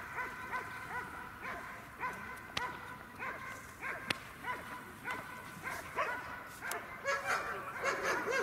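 A dog barking in a steady series, about two to three barks a second, getting louder and more rapid near the end.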